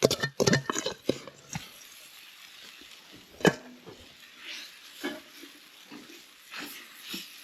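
Bacon and meat frying in grease in a pan: a sizzle under a utensil stirring and knocking against the pan, with a cluster of knocks at the start and one sharp knock about three and a half seconds in. The sound cuts off suddenly at the end.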